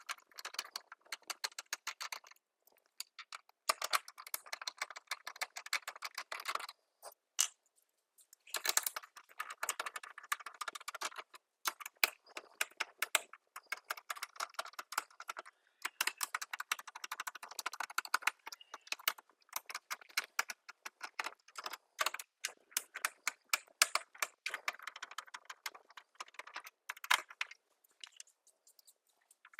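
Dense runs of small clicks and rattles from hands taking apart a plastic toy blaster with a screwdriver, stopping briefly a few times.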